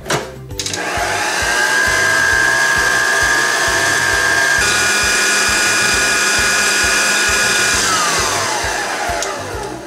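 Electric stand mixer with a wire balloon whisk beating cream in a steel bowl: the motor spins up about a second in and runs with a steady whine that changes pitch about halfway through, then slows with a falling whine near the end.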